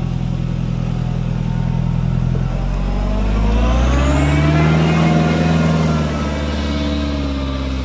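Off-road 4x4's engine pulling hard on a steep, slippery climb. It runs steadily at first, then revs up for a couple of seconds and eases back down near the end.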